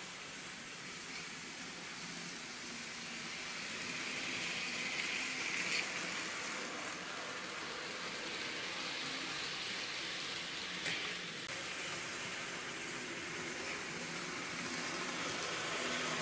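N-scale model freight train running on the layout track: a steady hissing rattle of wheels on rails that grows louder toward the end as the train approaches, with one sharp click about eleven seconds in.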